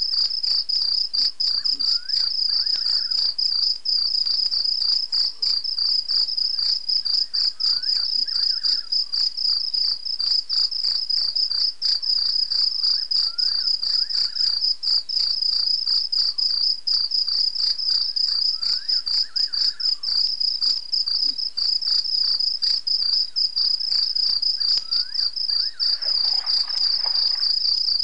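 Crickets trilling in a dense, fast-pulsing night chorus, loud and steady. Faint short rising calls sound every five or six seconds, and a brief rustle near the end.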